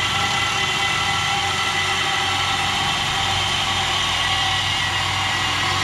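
Reciprocating saw running steadily as its blade cuts through a steel chain-link fence top rail.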